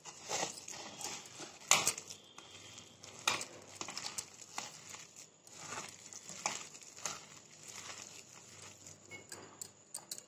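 A hand squishing and kneading a thick, damp paneer, bread-crumb and gram-flour batter in a plastic bowl, with bangles on the wrist clicking irregularly as it works; the sharpest clicks come about 1.7 and 3.3 seconds in.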